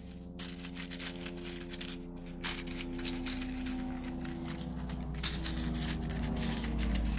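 Faint crinkling of foil blister packs being handled, over a low hum of several held tones that shift in pitch a few times.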